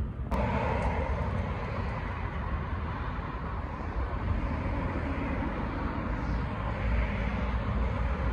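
Outdoor street ambience: a steady rumble of road traffic, with a heavy low-pitched wash that gets abruptly louder about a third of a second in.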